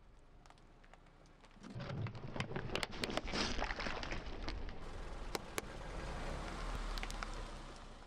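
Car tyre rolling over and crushing a slime-filled toy sheep on asphalt: a dense crackling, crunching hiss with many sharp clicks, starting about two seconds in and easing off near the end.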